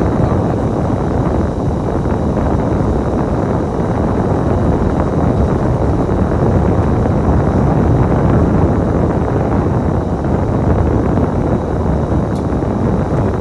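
Bus running with a steady rumble of engine and road noise, heard from inside the cabin.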